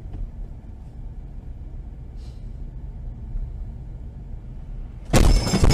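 Low, steady rumble of a car's engine and tyres heard from inside the cabin, then about five seconds in a sudden loud crash as the car collides with another car.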